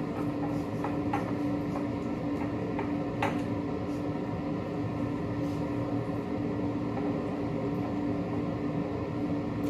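A steady machine hum with a constant low tone, like an appliance running in a small room. A few soft clicks come in the first few seconds.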